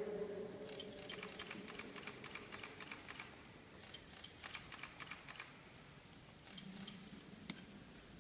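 Two runs of rapid, faint camera shutter clicks, each lasting a couple of seconds, over the quiet hush of a large church.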